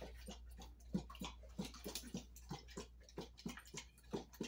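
A large dog lapping water from a bowl: quick wet clicks in a steady rhythm of about three to four a second.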